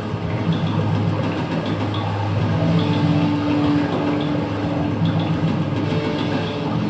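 Experimental electronic music from processed electric guitar and synthesizers: a dense, steady drone of low tones under a grainy, noisy texture, with a higher held note entering about two and a half seconds in for about a second.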